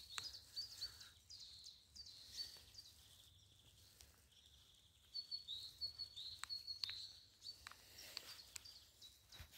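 Faint bird chirping: short high notes repeated in quick runs, one at the start and another from about five seconds in, over quiet outdoor background.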